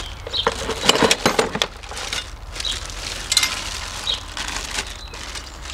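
Clear plastic bag crinkling and rustling as a wrapped tool is lifted out of a plastic toolbox, with a few light clicks and knocks of handling, busiest in the first second and a half.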